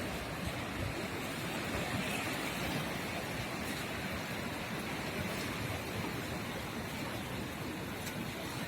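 Atlantic Ocean surf washing onto the shore, a steady rushing noise that swells slightly about two seconds in.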